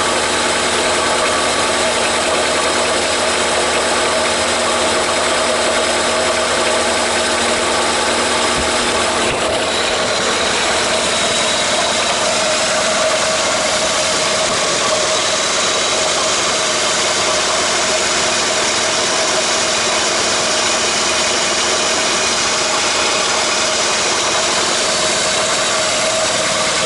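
Honda Accord F22B1 2.2-litre VTEC four-cylinder engine idling steadily, just started and running fine after a head gasket replacement.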